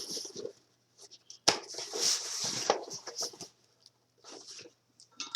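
Packaging being handled and opened by hand: irregular rustling and small clicks, with a sharp snap about one and a half seconds in followed by a couple of seconds of rustling.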